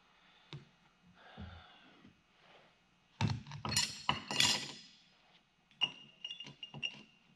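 Steel parts of a dismantled powershift clutch pack clinking and clattering as they are handled and set down on a workbench: a few light knocks, a loud burst of clattering about three seconds in, then several lighter clinks, some leaving a brief ringing tone.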